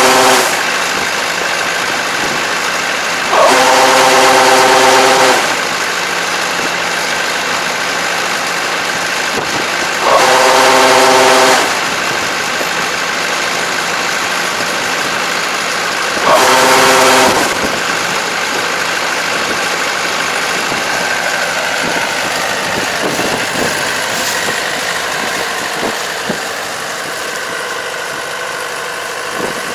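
Kubota ER587 combine harvester's diesel engine running steadily while it unloads grain through its auger into a truck. A loud horn-like tone sounds four times, each for one to two seconds, the first ending right at the start.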